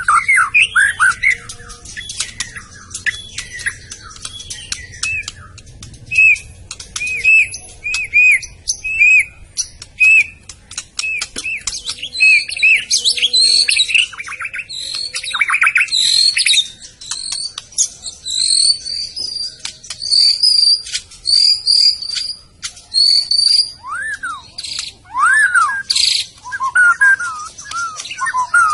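White-rumped shama singing a long, varied song: runs of short repeated whistled notes, fast clicking trills, high clear whistles, and near the end a series of arching notes that rise and fall.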